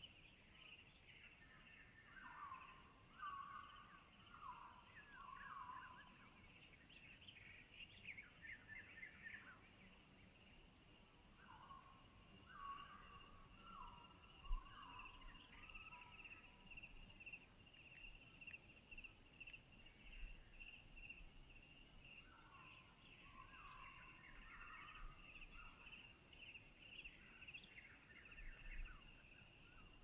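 Faint outdoor ambience: a songbird singing short phrases of several notes, three times about ten seconds apart, over a steady high-pitched buzz. A few soft low thumps come through, the most distinct about halfway through.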